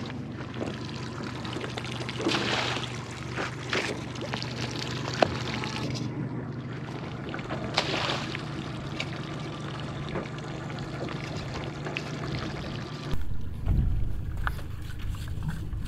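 Redclaw pots thrown from a boat splashing into the water, with water pouring and trickling over a steady low hum. Near the end, wind buffets the microphone.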